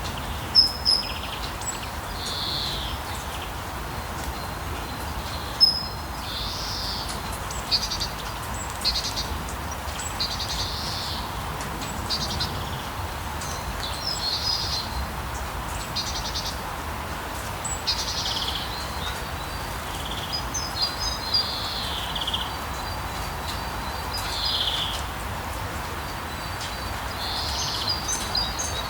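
Steady rain falling while birds sing over it, with short falling calls, quick chirps and trills every second or two.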